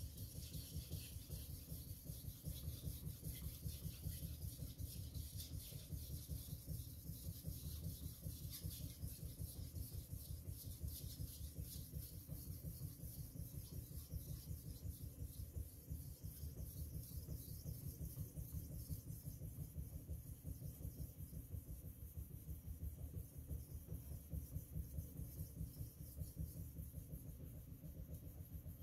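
Tojiro VG10 steel knife blade being stroked back and forth on an Arashiyama #6000 fine-grit whetstone, a steady run of quick, even rubbing strokes.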